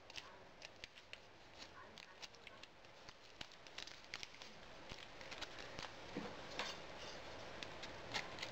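Aluminium foil crinkling and crackling in faint, irregular clicks as it is folded and pressed by hand around a cardboard form.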